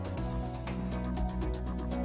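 Background instrumental music with steady held notes over an even, quick beat.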